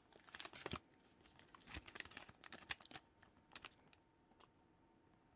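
Faint crinkling and scattered light clicks of a Pokémon booster pack and its cards being handled, dying away after about four seconds.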